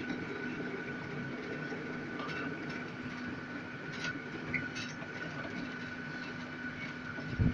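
Heide Park's Panoramabahn elevated ride train running along its track: a steady rumble with a constant hum and a few faint clicks.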